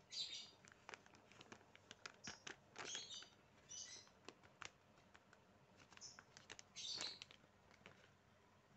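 Near silence, broken by faint, high chirps of a small bird in short bursts every second or so, with a few soft ticks between them.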